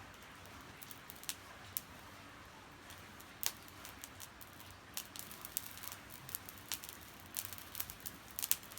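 Fire in a fire pit spitting sparks: scattered sharp crackles and pops over a steady hiss, coming thicker in the second half.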